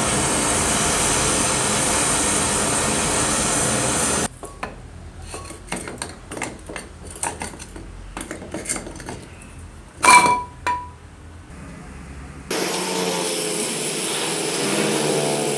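Handheld gas torch flame hissing steadily while heating a rusted steel motor housing to free it, cut off about four seconds in. Then scattered metal clinks and knocks as the housing is worked off the stator, with one loud ringing clink about ten seconds in. From about twelve seconds in, a gas welding torch flame hisses steadily.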